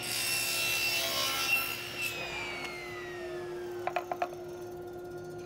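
Table saw crosscutting a plywood panel on a crosscut sled: the blade cuts through for about the first two seconds, then the saw keeps running with a steady hum and a whine that falls in pitch. A few light knocks come near four seconds in.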